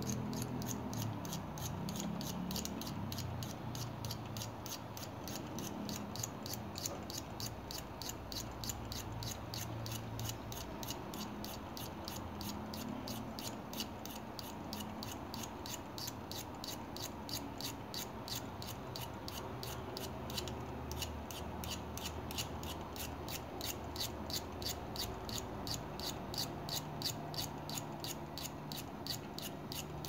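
A small file rasping across the thin blade of a Victorinox keychain knife in quick, regular strokes, grinding the edge bevel from the spine side toward the edge.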